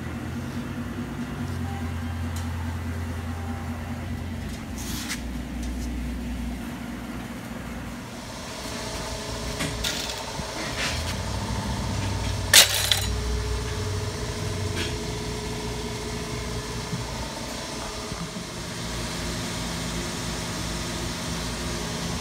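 Steady low mechanical hum with scattered clicks and knocks of hand work, the loudest a single sharp knock about halfway through; a faint hiss joins the hum after about eight seconds.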